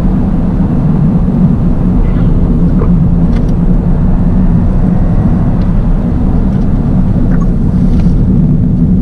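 Toyota GR Yaris's 1.6-litre turbocharged three-cylinder engine running steadily while driving, mixed with road noise, at an even pace without revving.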